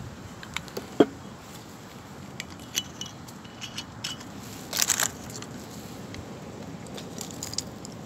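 Handling of a glass rum bottle and a stainless-steel travel mug on a wooden table: a sharp knock about a second in, scattered light clicks, and a short scraping rattle about five seconds in.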